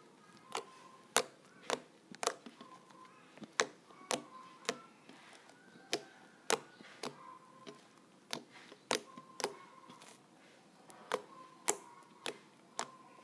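Toothpaste slime being squeezed, folded and pressed by hand, giving sharp, irregular clicks and pops at about two a second.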